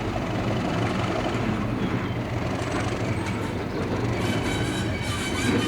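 Class 37 diesel locomotive's English Electric V12 engine running as it moves slowly along the track, with a high-pitched metallic squeal joining about four seconds in.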